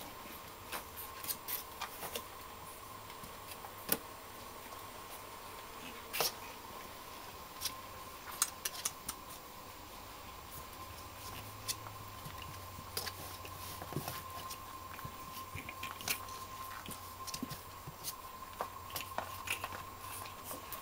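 Irregular small clicks and scratches of five-week-old Black and Tan Griffon puppies' claws and paws scrabbling as they play, over a faint steady whine.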